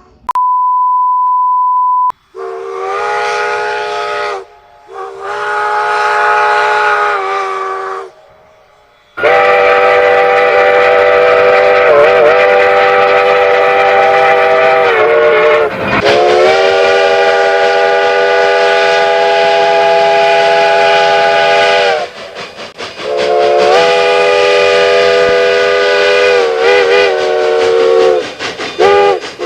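A steady single-pitch beep for about two seconds, then a steam locomotive's chime whistle sounding a chord of several notes: two blasts of a few seconds, one long blast of about thirteen seconds, and a run of shorter blasts near the end.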